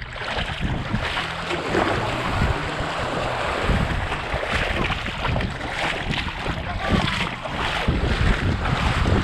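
Wind buffeting the microphone as a steady rumble, over small waves washing up on a sandy shore.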